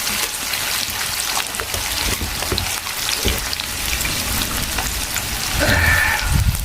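Chilies, Sichuan peppercorns and fermented black beans frying in hot oil in a pan: a steady, dense crackling sizzle, with the low knocks of stirring.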